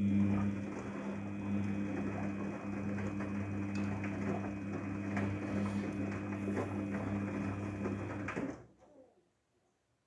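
Daewoo DWD-FT1013 front-loading washing machine turning its drum during the softener rinse: a steady motor hum over the wash of the wet laundry, which cuts off about eight and a half seconds in as the drum stops.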